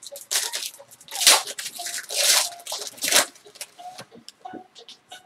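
Foil wrapper of a football card pack being torn open and crinkled by hand, a series of sharp crackling rips, loudest about a second and two seconds in, then dying down to a few light rustles.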